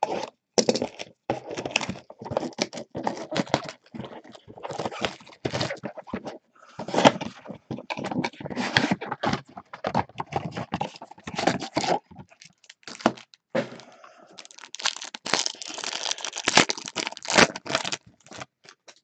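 Gloved hands opening a trading-card mega box and tearing open a foil card pack: cardboard and wrapper rustling, crinkling and tearing in quick short bursts, busiest near the end.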